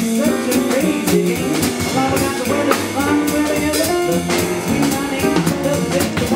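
Jazz band music: a small combo playing, with drum kit and cymbal hits over bass and pitched melody instruments.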